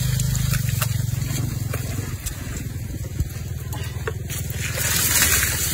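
A small engine running steadily, a low, evenly pulsing hum, with a few faint clicks over it.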